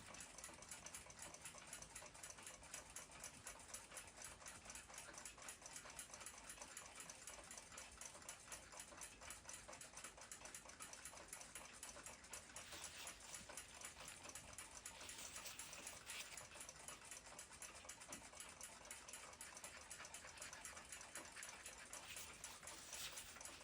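Faint, fast, steady ticking of a mechanical clock.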